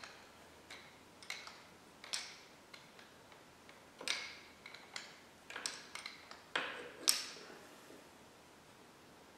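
Irregular metallic clicks and clinks, some with a brief ring, as a dirt bike's rear brake caliper and its metal bracket are handled and shifted. The clinks stop about three quarters of the way through.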